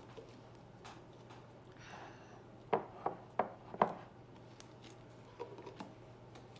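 A ball of homemade slime bounced on a hard table: four quick knocks, about three a second, a little before halfway through, after a brief soft rustle.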